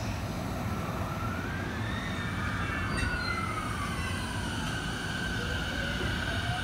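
E233 series electric train pulling away from the platform, its traction inverter whining in gliding tones as it accelerates: a whine rises, falls away, and a new one starts climbing near the end, over a low rumble from the moving train.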